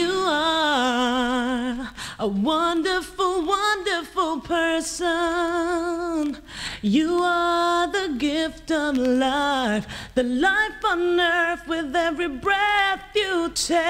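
A solo singing voice with little or no accompaniment, singing phrases with wide vibrato on the held notes and short breaks between phrases.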